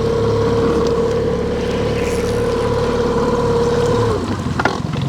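Boat's outboard motor running at a steady pitch with a whine over a low drone, which falls away about four seconds in as the throttle comes back, followed by a short knock.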